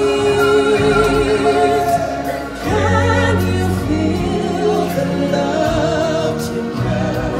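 Live stage-show music: vocalists singing into handheld microphones with choir-style voices, in long held notes. A deep bass part comes in about two and a half seconds in.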